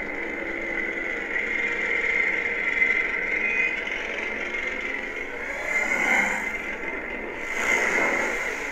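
Rocket-launch-themed lightsaber sound font playing from a saber's speaker: a steady static-like hiss with a constant high whine, swelling twice near the end.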